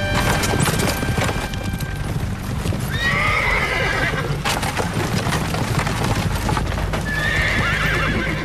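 A team of horses galloping, hooves pounding fast and continuously, with a horse whinnying about three seconds in and again near the end.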